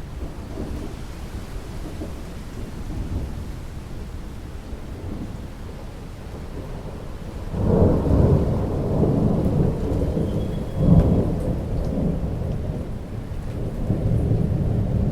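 Steady rainfall with a low rumble of thunder that swells up suddenly about halfway through, a louder clap a few seconds later, then keeps rolling.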